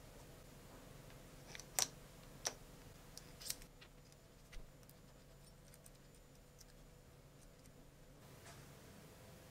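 Four short, sharp clicks of small parts being handled as a propeller is fitted onto the output shaft of a model twin Wankel rotary engine, the first the loudest. A faint steady hum runs underneath.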